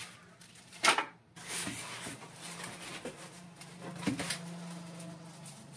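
Rustling of plastic bags and cardboard packaging as accessories are lifted out of a printer's shipping box, with a sharp crinkle about a second in and a small knock around four seconds.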